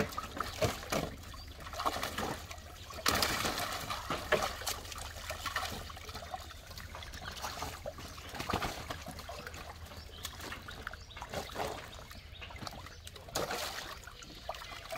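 Live fish thrashing and splashing in shallow water in a tarp-lined boat hold, in irregular bursts, with water trickling between.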